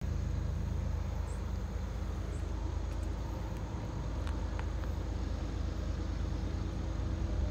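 A slow-moving CSX intermodal freight train: diesel locomotive engines running with a steady low rumble, and a few faint clicks in the middle.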